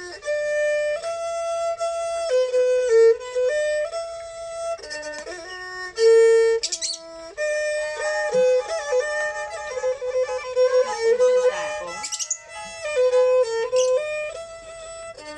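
Thai sor fiddle bowing a Kantrum mahori melody: held notes moving up and down in steps, with a few quick slides.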